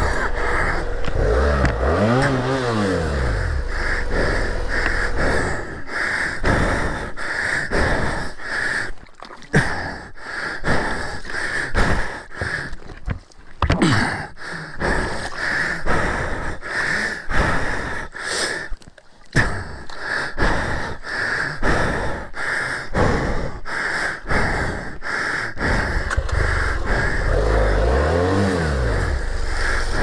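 BMW F650GS motorcycle engine revved up and back down twice, about two seconds in and again near the end, as the bike sits stuck on the rough track. Between the revs there is rough, uneven rustling and breathing noise.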